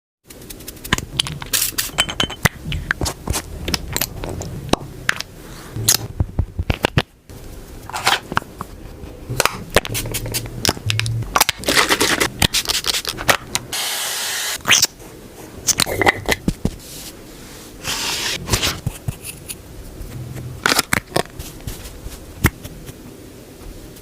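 Close-miked makeup sounds: products and packaging clicking, tapping and scraping in quick, uneven strokes, with a steady spray-like hiss of about two seconds around the middle.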